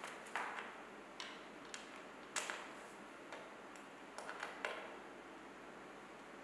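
Screws clicking and tapping against a metal support bracket as they are picked up and set by hand into its holes: a series of sharp, irregular clicks, bunched a little after the middle.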